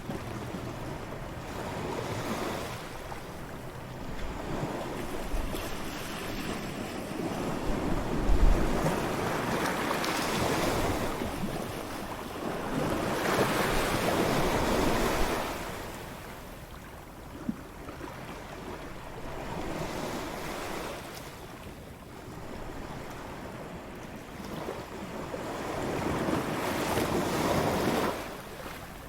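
Ocean surf breaking and washing up a beach, the noise of each wave swelling and fading away every five to seven seconds, with a low thump of wind on the microphone about eight seconds in.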